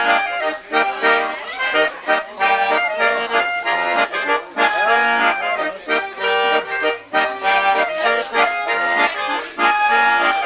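Accordion playing a lively traditional folk tune, with a melody over chords pumped in a regular rhythm.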